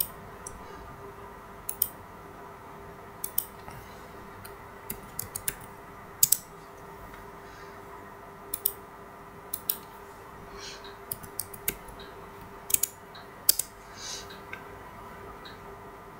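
Computer mouse buttons and keyboard keys clicking, in scattered single and paired clicks, while dimensions are entered in CAD software. A steady faint hum runs underneath.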